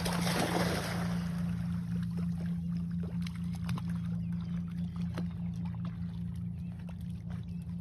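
A dachshund splashes into lake water at the start, with spray for about a second, then swims off. A loud, steady low hum runs under it all.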